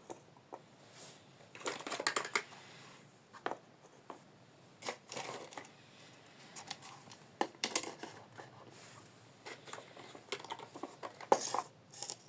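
Small plastic toy kitchen pieces being handled: irregular light clicks, taps and rustles as parts are picked up, set down and fitted together.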